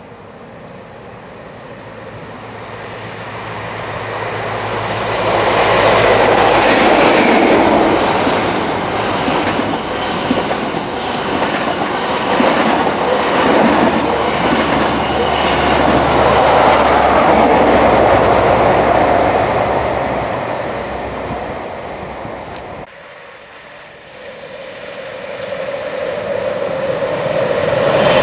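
East Coast electric express of Mk4 coaches passing through a station at speed: a rising rush of wheels and air that peaks for several seconds with a rapid clickety-clack of wheels over rail joints, then fades. After an abrupt cut just past the three-quarter mark, a Class 91 electric locomotive approaches, its rush and a steady hum building toward the end.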